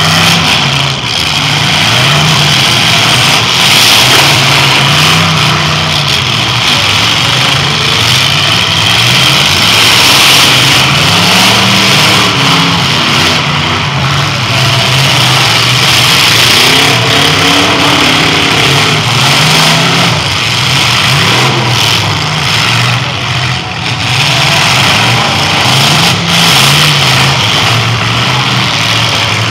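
Demolition derby car engines revving hard and easing off again and again, their pitch rising and falling every second or two, loud over a rough steady din.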